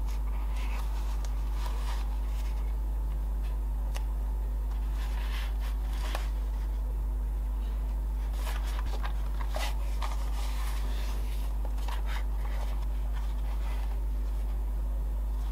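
Leather and tools being handled: scattered light scratches, rustles and clicks over a steady low hum.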